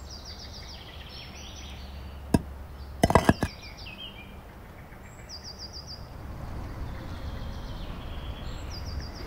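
Outdoor street ambience: a steady low rumble with birds chirping in short, quick high trills every few seconds. A sharp click comes about two seconds in and a brief knock a second later, the loudest sound here.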